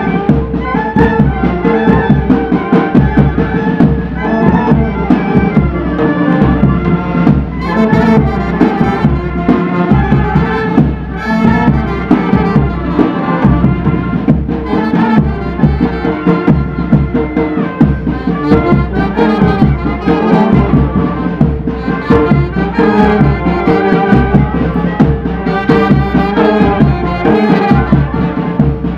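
Military brass band playing a tune live: clarinets, trumpets, saxophones and euphoniums over drums.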